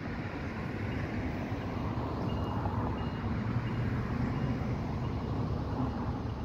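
Steady low rumble that grows slightly louder. From about two seconds in, a faint high ding repeats about every half second from the railroad crossing's warning bell while the barriers are down and the lights flash.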